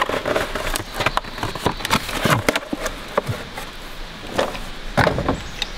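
Cardboard packaging being handled and pulled off a tool: a string of short crinkles, scrapes and knocks, the loudest about five seconds in.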